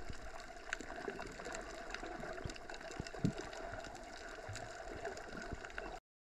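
Faint underwater ambience: a steady watery hiss with a few small clicks, cutting off suddenly near the end.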